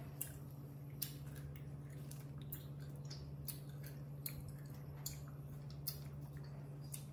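Baby monkey sucking and chewing on a lollipop-style candy stick: short wet smacking clicks about once a second, over a steady low hum.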